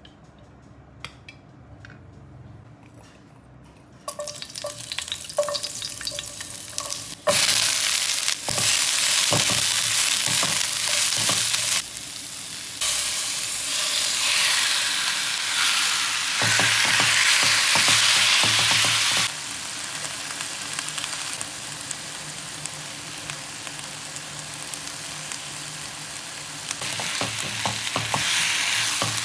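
Food frying in a hot pan: a few light knocks at first, then a loud sizzle that starts abruptly about seven seconds in and carries on, with stirring and scraping in the pan and the sizzle's level stepping up and down several times.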